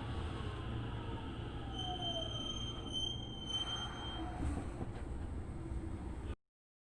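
Tokyo Metro 08 series train slowing down: a steady rumble, with the motor tone falling in pitch over the first two seconds and a thin high squeal for a second or so in the middle. The sound cuts off abruptly near the end.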